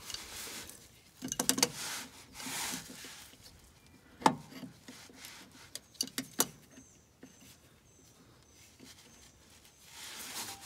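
Adjustable wrench knocking and scraping against a very tight oil pan drain plug as it is worked loose, a few sharp metallic knocks, the loudest about four seconds in, between stretches of rustling.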